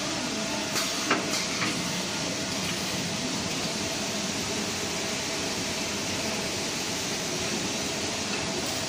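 Automatic facial tissue packing machine line running: a steady mechanical hum, with a few light clicks about a second in.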